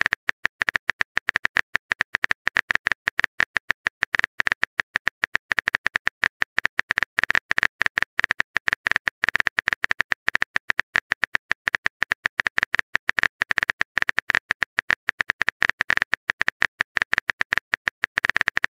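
Simulated phone-keyboard typing clicks, a rapid, uneven stream of short taps as a message is typed out letter by letter.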